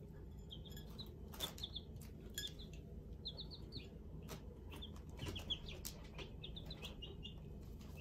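Young chickens peeping: short high peeps in runs of three or four, repeated several times, with sharp taps of beaks pecking at food on plates and the table.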